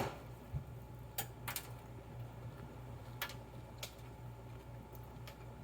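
Someone quietly chewing a crunchy-topped Fruity Crunch beignet: a few faint, scattered soft clicks and crunches over a steady low hum.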